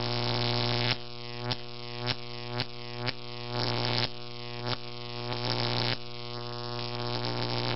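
Electronic intro music: a steady low droning note with many overtones, with a new note struck about twice a second.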